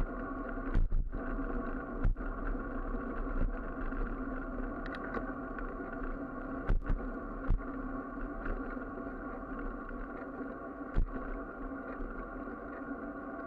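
A steady ambient music drone, sustained tones held without change, with a few sharp knocks from the handlebar-mounted camera jolting over cracks in the road, a cluster about a second in, more around seven seconds and one near eleven seconds.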